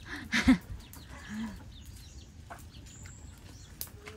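Chickens clucking a few times in short calls, the clearest about half a second in.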